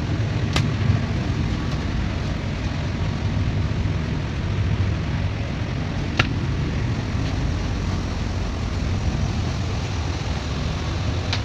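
Steady low drone of a cargo ship's running machinery heard inside the accommodation. A few short sharp clicks come about half a second in, about six seconds in and near the end.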